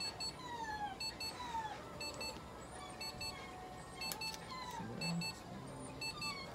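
Laser therapy probe beeping at a steady pace, about once a second, while it emits. A sharp click about four seconds in comes from nail clippers cutting a cat's claw, and short falling whistle-like notes recur behind.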